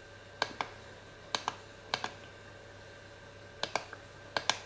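Five presses of a small plastic push button on an ultrasonic aroma diffuser, each a quick double click of press and release, spaced unevenly, stepping its LED light through its colours.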